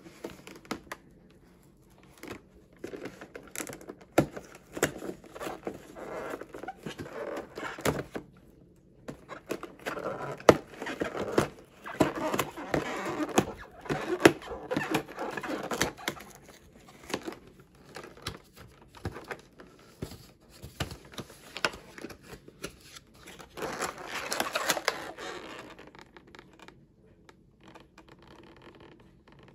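A cardboard box being torn open by hand: ripping and crinkling of card with scattered clicks and knocks of handling, coming in bouts, the longest and loudest in the middle.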